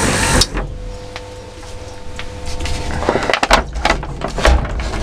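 Electric windscreen wiper motor on an MTZ-80 tractor cab humming steadily after a burst of noise that stops about half a second in. From about three seconds in, the crackle and knocks of a plastic water bottle being handled against the cab join it.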